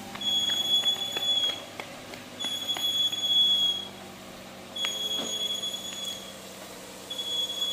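A high, steady beeping tone repeating about every two and a half seconds, each beep lasting about a second and a half, over the steady drone of an engine running.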